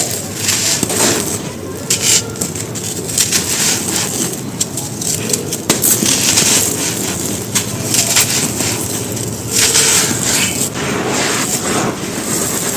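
Soft, crumbly white cylinder pieces being crushed on a dry floor: a continuous run of crisp crunches and crackles, with heavier bursts of crunching about a second in, halfway through and near the end.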